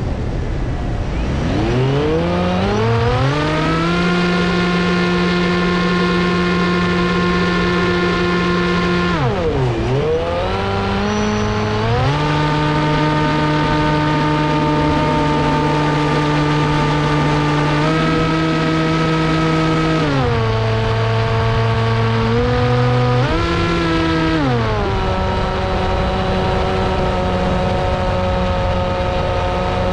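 RC plane's motor and propeller running. The drone climbs in pitch as the throttle comes up, then holds steady. It dips sharply and briefly about ten seconds in, then shifts between several steady throttle settings, stepping down about three-quarters of the way through.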